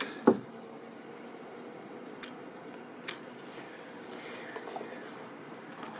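A dry dead stem being pruned out of a Jerusalem sage bush: one sharp crack about a third of a second in, then two faint clicks a couple of seconds later, over a steady low background noise.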